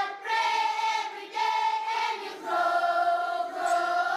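Choir singing slowly in long held notes, the chord changing about once a second.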